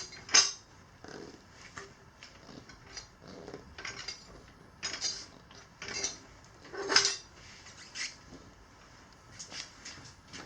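Steel tire irons clinking and scraping against a wheel rim while levering the bead of a stiff knobby tire on, in irregular sharp clinks a second or so apart, the loudest about seven seconds in.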